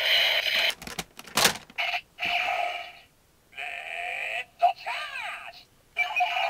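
Toy Gokai Galleon Buster blaster playing its electronic sound effects through its small speaker. A sharp click comes about a second in, then bursts of electronic tones broken by short gaps, a run of sweeping rising and falling glides near the end, and a steady electronic tone that starts up again at the very end.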